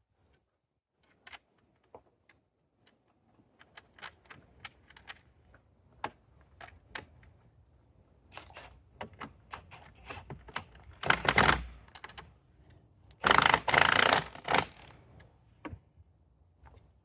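Scattered clicks and knocks of hand-tool work on the feeder's parts, with two louder rasping bursts of about a second each, one just past the middle and one about two-thirds through.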